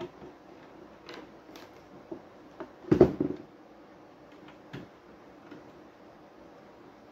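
Screwdriver working the screw terminals of a car amplifier: scattered small clicks and scrapes, with a louder clatter of knocks about three seconds in.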